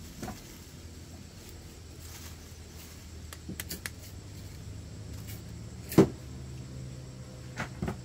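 Scattered light clicks and knocks, with one sharp knock about six seconds in, over a low steady hum.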